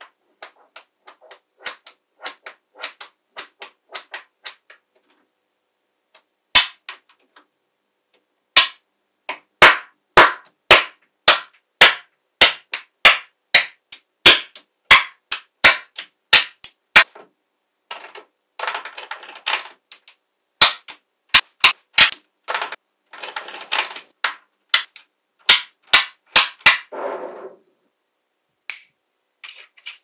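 Small magnetic balls snapping together in sharp single clicks, a few a second, as strips and columns of balls are pressed onto a block, with two short stretches of quick rattling in the second half as balls clatter and settle against each other.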